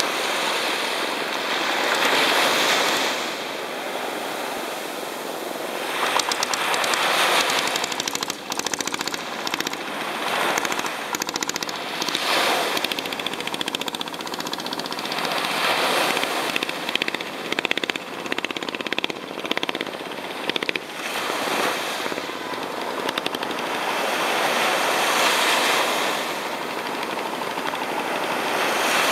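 Small waves washing up onto a sandy beach, swelling and falling back every few seconds. Through the middle stretch a longtail boat's engine rattles out a rapid popping as the boat passes offshore.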